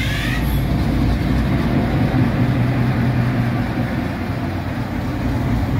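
EMD 16-645E sixteen-cylinder diesel prime mover of an SD38-2 locomotive on a second start attempt. A rising whine in the first half-second as it spins up, then a steady deep rumble as it runs.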